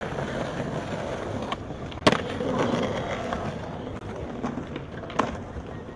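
Skateboard wheels rolling steadily over paving, with sharp clacks of the board against the ground: the loudest about two seconds in, another just before it, and one more near the end.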